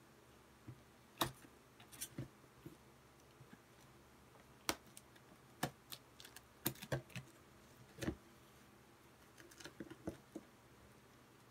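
Cardboard box in plastic wrapping being handled and opened by hand: irregular sharp clicks, crackles and scrapes of cardboard, tape and plastic film.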